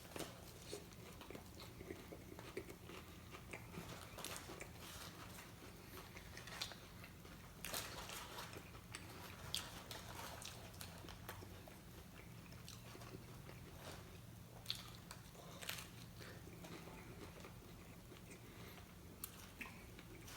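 Faint chewing and biting of tacos, with scattered crunches and mouth clicks over a low steady hum.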